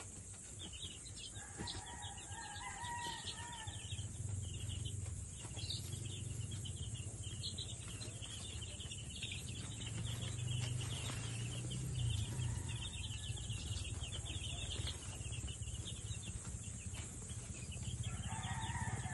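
A large brood of gamefowl chicks peeping constantly, a dense chorus of high chirps. A rooster crows in the background twice, once a couple of seconds in and again near the end, over a steady low hum.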